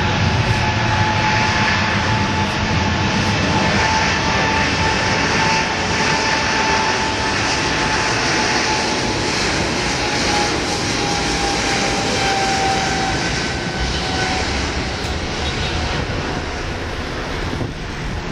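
Boeing 777-300ER's GE90 jet engines running close by: a loud rushing noise with a steady whine that slowly drops in pitch and fades a little over the first dozen seconds.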